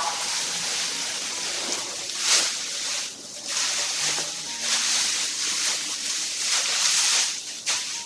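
Dry straw rustling and crackling as it is gathered and pressed down by hand, in swells that rise and fade every second or so with a sharper rustle about two seconds in.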